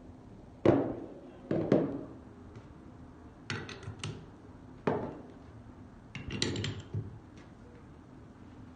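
Metal clinks and knocks from handling a large 3/4-inch drive 120-tooth ratchet, in about five separate bursts, some of them short runs of quick clicks.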